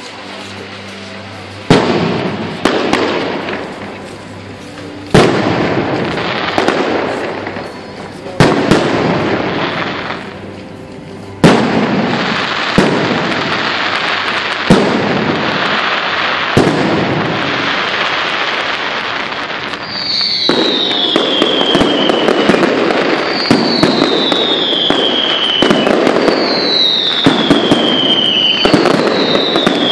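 Aerial fireworks display: loud shell bursts every three seconds or so, each trailing off into crackling, then a continuous crackle of many bursts. In the second half, four falling whistles come about three seconds apart over the crackle.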